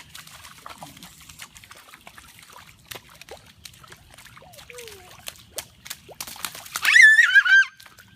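Water sloshing and splashing as people wade in shallow floodwater, with scattered small splashes and faint short cries. About seven seconds in comes a loud, high-pitched wavering squeal lasting under a second.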